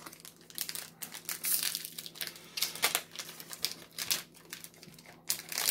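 Crinkling of a Magic: The Gathering booster pack's foil wrapper and rustling of trading cards being handled, in a run of irregular rustles.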